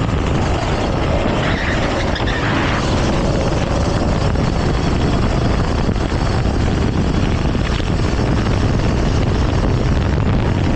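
Go-kart engine running steadily through the race, heard from on board the kart.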